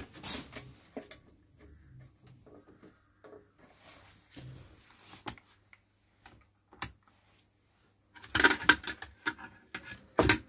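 Scattered clicks and knocks of bench test gear being handled: a digital multimeter's rotary switch turned and test leads and plugs moved, with a dense burst of close clicking and rattling near the end.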